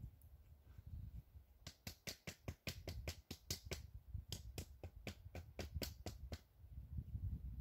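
A run of about twenty sharp, dry clicks at an uneven few per second, starting about a second and a half in and stopping about six seconds in, over a faint low rumble.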